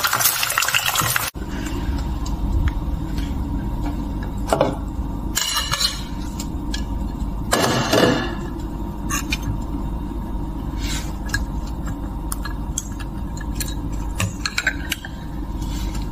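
Egg frying in hot oil in a pan, sizzling, cut off after about a second. Then a steady low hum, with a few light clinks of chopsticks against a ceramic bowl of instant noodles.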